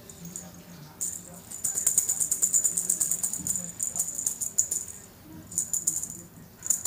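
A small bell jingling in rapid, dense bursts as a kitten wrestles with and bites a feather wand toy. The jingling starts about a second in and fades out around five seconds, then comes back in two shorter bursts near the end.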